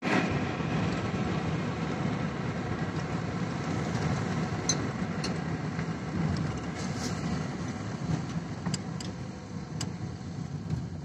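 Steady engine and road rumble of a moving vehicle, heard from inside the cabin, with a few sharp light ticks in the second half.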